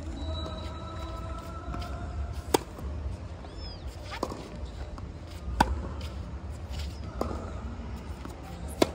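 Tennis rally: a racket strikes the ball with a sharp, loud hit about every three seconds from the near end, and fainter hits from the far end of the court fall between them.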